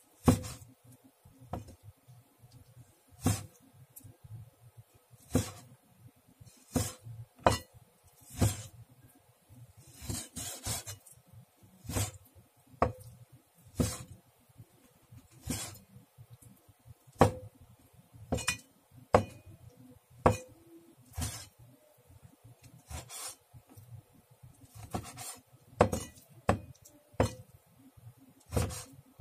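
Chef's knife cutting raw beef into cubes on a wooden cutting board: sharp knocks of the blade meeting the board at an uneven pace, roughly one a second, with a short scrape of the knife partway through.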